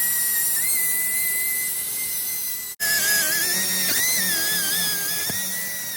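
High-speed rotary tool, such as a die grinder or wire wheel, whining steadily at a high pitch while cleaning rust off metal. The pitch dips and wavers as the tool bears on the work, and there is a short break in the sound a little under halfway through.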